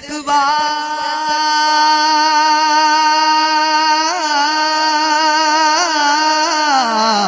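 A man sings a devotional Punjabi recitation into a microphone. He holds one long, steady note for several seconds, adds small wavering ornaments, and then slides down in pitch near the end.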